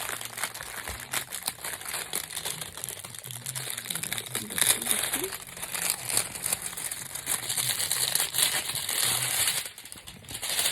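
Plastic packaging crinkling and rustling in a run of crackles and small clicks as a DVD box set is unwrapped by hand. It eases off briefly near the end.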